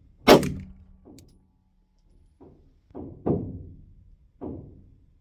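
Glock 45 9mm pistol firing 124-grain rounds: two sharp, loud shots about five seconds apart, one just after the start and one at the very end, with several duller, quieter shots in between.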